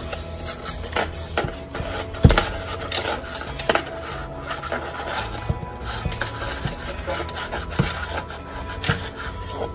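Handheld adhesive tape runner rubbing and rasping along a cardstock tab as it lays down glue, with paper handling and a sharp click a little over two seconds in.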